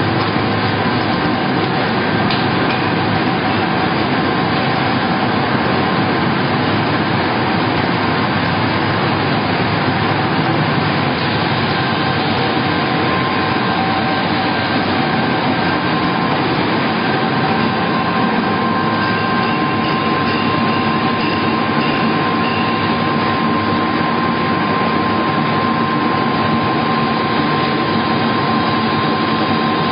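Wood pellet production line running: the vertical ring-die pellet mill and its conveyor give a loud, steady machine noise with a few constant whining tones. One of those tones grows stronger about halfway through.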